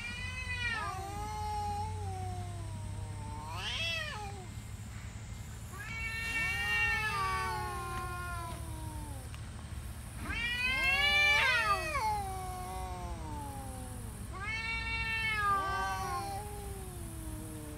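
An orange tabby and a brown tabby stray cat yowling back and forth: about five long, drawn-out yowls that waver up and down in pitch, the loudest about eleven seconds in. The uploader takes it for a territorial standoff with a newly arrived orange tom.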